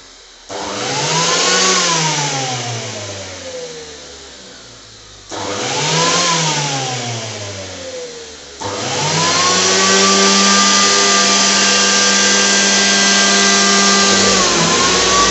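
Electric fan motors of a homemade RC hovercraft spinning up with a rising whine, then winding down with a slowly falling whine. This happens twice, each spin-up cutting in suddenly. Then the motors spin up again and run steadily at high speed, with a brief dip near the end.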